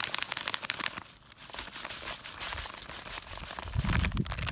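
Dry carp groundbait pouring out of a plastic bag into a bait tray: the bag crinkles and the crumbs rustle and crackle. A low bump near the end.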